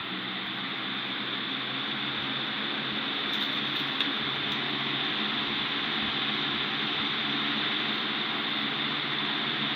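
2017 20-inch Mainstays box fan with a capacitor-run motor, its blades speeding up to medium speed: a rush of air over a low motor hum that grows louder over the first couple of seconds, then runs steady. A single light click about four seconds in.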